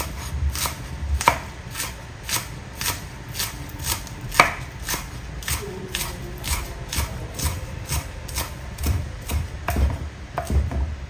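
Steel cleaver chopping green onions on a wooden chopping block, with even strokes about two a second and one harder knock about four and a half seconds in.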